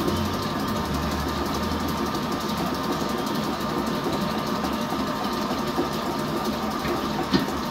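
Electric stand mixer running steadily at speed, whipping egg whites, the machine vibrating on an unsteady table.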